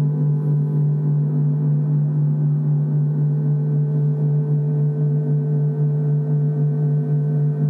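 Gongs sounding a sustained, steady drone: a strong low hum with many ringing overtones that waver slightly.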